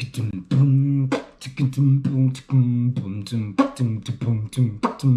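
A man beatboxing: short voiced notes at a fairly steady low pitch, chopped up by sharp mouth clicks and pops.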